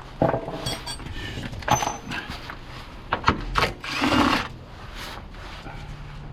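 Workshop tool noise while working on a car: separate metal knocks and clanks, with a short louder burst of a power tool about four seconds in and a steady low hum starting near the end.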